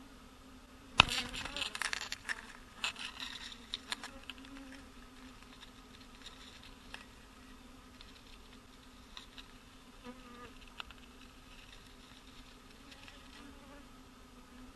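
A swarm of bees buzzing as a steady low hum. About a second in there is a sharp knock, followed by a few seconds of crackling and rustling that fades into scattered faint clicks.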